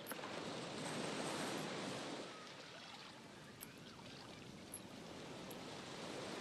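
Ocean surf washing in, swelling about a second in and easing off after about two seconds.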